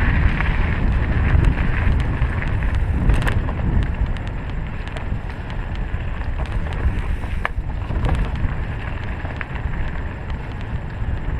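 Wind buffeting the microphone and the tyre rumble of a 2016 Trek EX9 29 full-suspension mountain bike rolling over dirt trail, with scattered sharp clicks and rattles from the bike.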